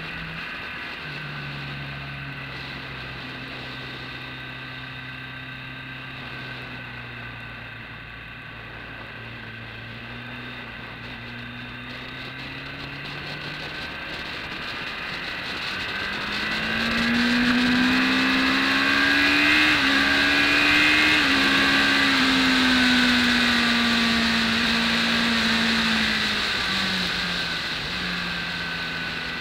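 BMW K1200S inline-four engine under way on a motorcycle, heard with wind rush on the bike-mounted camera: a low, steady engine note that slowly sags for the first half, then the throttle opens about halfway through and the pitch and loudness climb, with the wind noise growing, before the note eases off again near the end.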